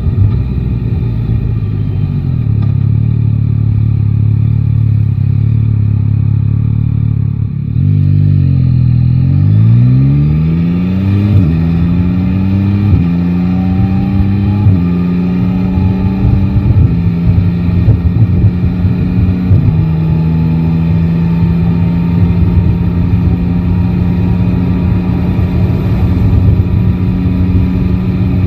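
Yamaha Tracer 9 GT's inline three-cylinder engine idling, then about eight seconds in pulling away and accelerating through the gears: the pitch climbs and drops back at each of five upshifts, then holds steady while cruising.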